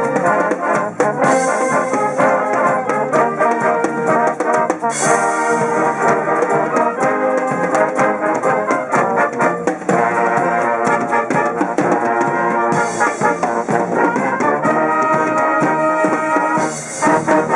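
Brass orchestra playing: trombones, trumpets and tubas in full chords over a drum kit, with several cymbal crashes.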